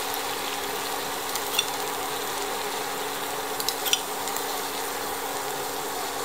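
Pumpkin and scrambled egg sizzling steadily in a frying pan. A few light clinks of a metal spoon against a ceramic bowl come about one and a half seconds in and again around four seconds, as light soy sauce is spooned over the food.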